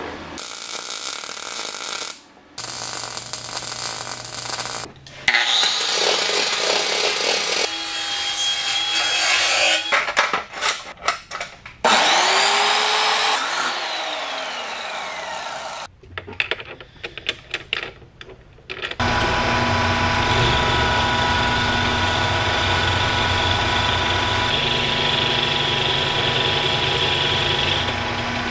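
A run of metal-shop sounds: arc welding hissing and crackling at the start, an abrasive chop saw spinning up, cutting steel and winding down about halfway through, then a metal lathe running steadily through the last third.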